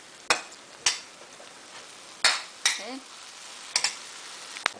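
A steel spoon knocks and scrapes against a wok, about six sharp strikes, as softened tomato masala is mashed into a thick gravy, over a steady faint sizzle of frying.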